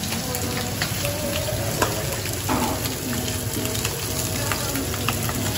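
Chicken pieces sizzling in hot oil in frying pans on a gas hob: a steady hiss with many small crackles and pops.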